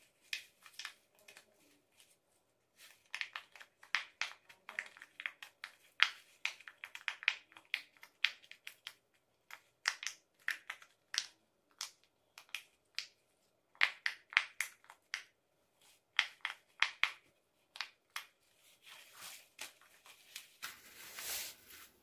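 Silicone pop-it fidget toy's bubbles pressed in by fingers one after another: a run of small sharp pops in quick bursts with short pauses between them. Near the end, a brief rustle as the toy sheet is lifted and turned over.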